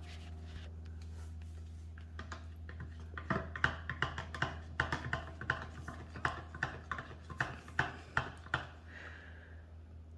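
A spoon clicking and tapping against a container, about three irregular taps a second, while mixing tomato paste with water, over a steady low hum.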